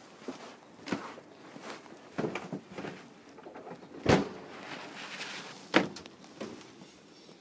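Irregular knocks and thumps of someone moving about inside a caravan: footsteps on the hollow floor and bumps of the fittings, the loudest thump about four seconds in.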